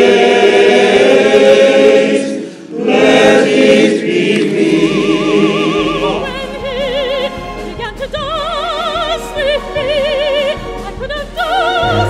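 A male voice choir sings a full chord, dips briefly about two seconds in, and fades out about four seconds in. A solo female voice follows, singing high in operatic style with a wide vibrato.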